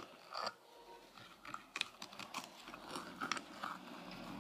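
Faint, irregular clicks and taps of small hard plastic parts: a doll stand's pieces being handled and tried together.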